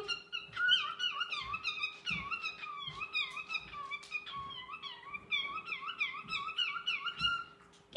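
Cockatiel warbling: a quick, unbroken run of short chirps and whistles rising and falling in pitch, stopping just before the end.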